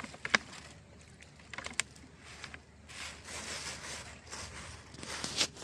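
Hands mixing and squeezing a bait mix of bran, ground wheat and chicken feed: a crisp rustle with a few sharp clicks.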